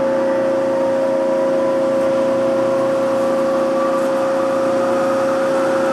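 Hyd-Mech H-40 horizontal bandsaw running under power: a steady, unchanging machine hum with a constant whine.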